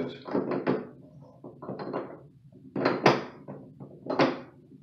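A drain tool turning a new chrome-finished brass tub drain flange into its thread, making a series of irregular knocks and scrapes, loudest about three seconds in.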